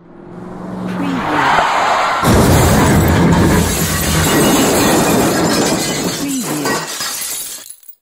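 Designed car crash sound effect: a braking skid builds up, then about two seconds in a heavy impact hits, followed by several seconds of metal crunching and glass shattering that dies away near the end.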